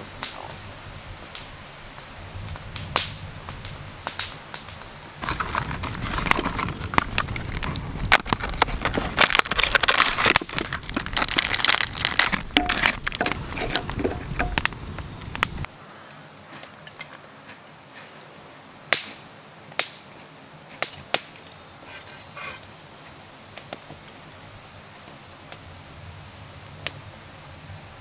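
Hands handling chocolate biscuits and a stainless steel cup. Dense crackling and clicking runs for about ten seconds in the middle and stops abruptly, with scattered sharp clicks before and after.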